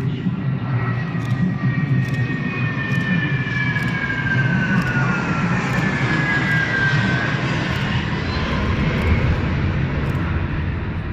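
Airbus A330 with Rolls-Royce Trent 700 turbofans flying a low pass overhead. A steady, loud jet rumble carries a high engine whine that slides down in pitch as the aircraft goes by, and the sound begins to fade near the end.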